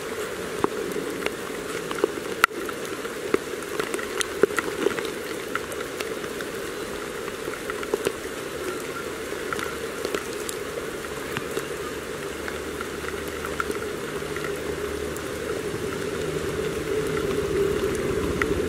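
Rain falling steadily, with many separate drops hitting close by as sharp little clicks, thicker in the first half.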